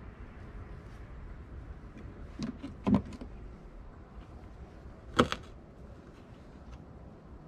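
Sharp knocks of a skinned squirrel and a knife against a pickup's tailgate as the carcass is laid down and cut: a few knocks about two and a half to three seconds in, and one louder knock a little after five seconds, over a low steady rumble.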